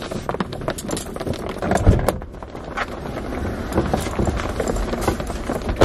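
Heavy rain pelting a car, a dense, irregular patter of drops hitting the roof and glass, with a couple of louder knocks.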